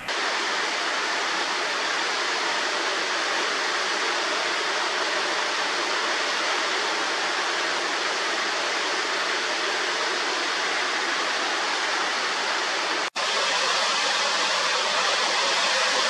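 Mountain waterfall: a steady rush of water falling down a rock face. It cuts out for an instant about thirteen seconds in and comes back slightly louder.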